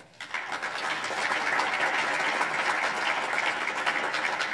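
Audience applauding, many hands clapping at once. The clapping builds up within the first second and then holds steady.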